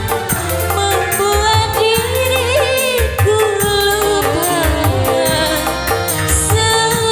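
Live band music of an Indonesian song: a steady low drum-and-bass beat under a wavering melody line.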